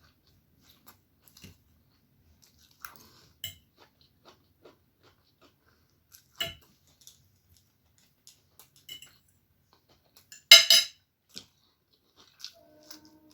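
Close-miked eating of egg chow mein noodles: scattered soft mouth clicks and chewing with light clinks against the plate, and one louder sharp clatter about ten seconds in.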